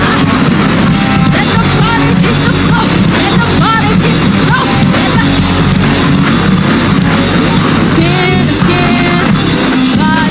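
Live rock band playing loudly and without a break, with drums, guitars and a singing voice.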